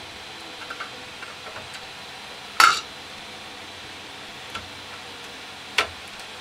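Hard metal clinks as the printer's linear rail and its rail clips are handled and set in place: a few faint ticks, one loud clink about two and a half seconds in with a brief ring, and a sharp click near the end.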